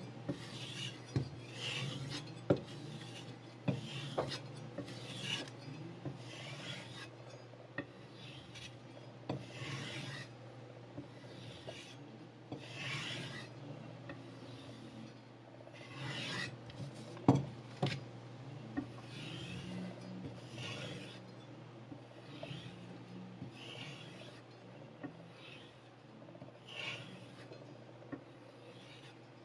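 Kitchen knife blade drawn over sandpaper on a sharpening block in steady, even strokes, each a short dry rasp, a little under one stroke a second. A few sharp clicks of the blade or block are heard, the loudest just past the middle.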